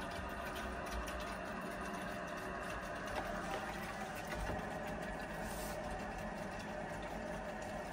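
Mains water rushing steadily through the pipework and valves as an unvented hot water cylinder refills and repressurises: a continuous hiss with a faint hum.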